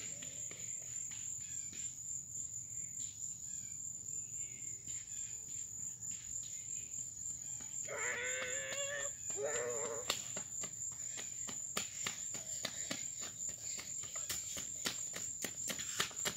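A steady high-pitched insect chorus of crickets chirring outdoors, with a distant voice calling out twice about eight seconds in.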